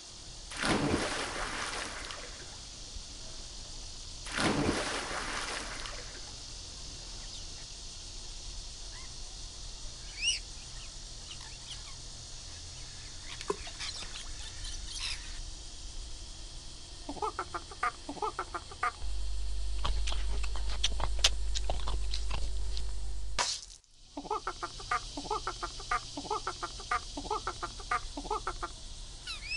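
Two whooshes that fall in pitch, like something flying past. Then scattered bird chirps, and later rapid chattering bird-like calls, with a low hum under part of them that cuts off sharply about three quarters of the way in.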